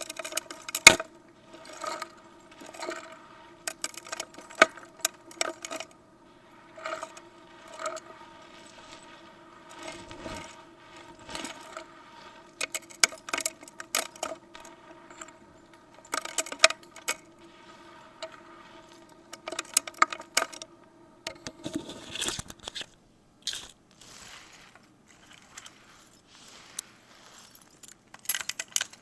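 Vacuum cleaner running with a steady motor hum while small hard objects clatter and clink against it. The hum drops away about 22 seconds in, leaving scattered clinks.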